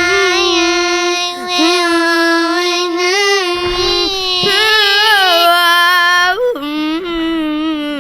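A loud, voice-like note held without a break, wavering and sliding slightly in pitch and dropping to a lower note about six and a half seconds in, like a child singing or wailing one long note.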